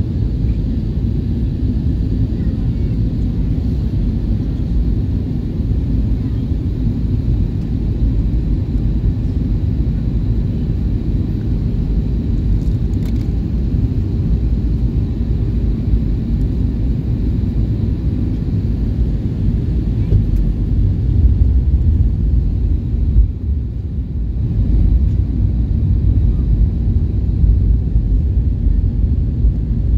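Airbus A320 cabin noise during the descent to land: a steady low rumble of the engines and rushing air, heard from inside the cabin, dipping briefly about three quarters of the way through.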